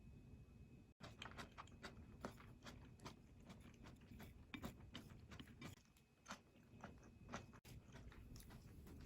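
Close-miked chewing and biting of stir-fried onion and egg: irregular soft mouth clicks and small crunches of the cooked onion, starting about a second in.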